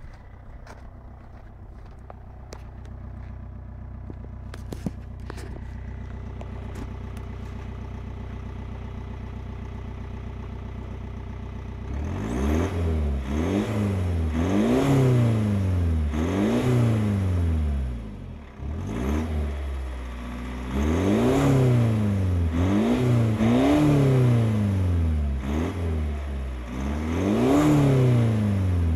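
BMW E46 320d's 2.0-litre four-cylinder turbodiesel, breathing through a stainless Magnaflow aftermarket exhaust, idling steadily. Then, a little under halfway through, it is revved over and over, about once every two seconds, the pitch rising and falling with each blip of the throttle.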